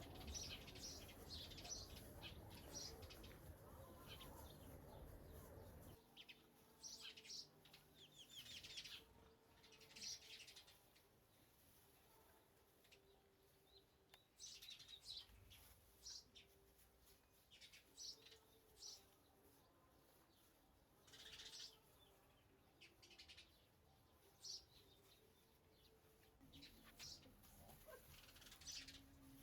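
Faint chirping of small birds in short scattered bursts, with a low rumble underneath for the first six seconds that then stops.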